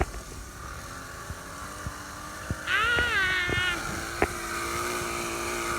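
A motorbike engine running, its steady hum growing slowly louder from about two seconds in, with a brief wavering higher tone near the middle and a few light clicks.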